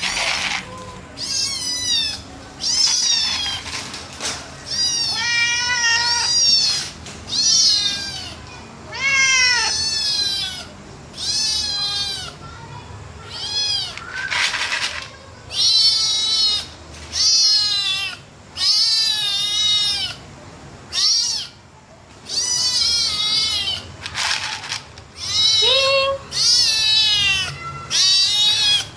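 Domestic cats meowing over and over at dinner time, a steady run of loud, separate meows, many of them rising and falling in pitch, as they beg to be fed.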